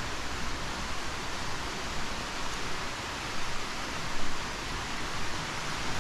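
Steady rush of fast-flowing river water: an even hiss with no breaks. A short bump about four seconds in.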